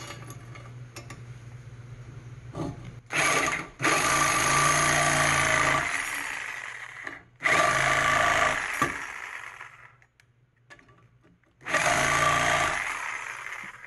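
Reciprocating saw cutting into the metal bushing shell pressed into a truck's A-arm, scoring it deeply but not all the way through. It runs in bursts: a short one about three seconds in, a long one with a brief stop partway, then a pause and another run near the end.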